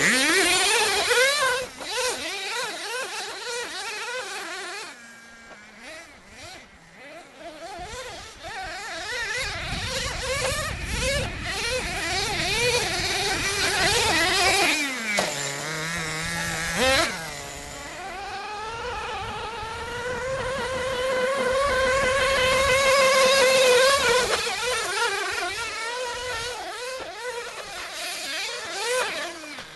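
Small two-stroke nitro glow engine of a 1/10 scale RC monster truck, revving up and down in quick buzzing sweeps as it is driven, falling briefly to a steady idle about halfway through before revving again.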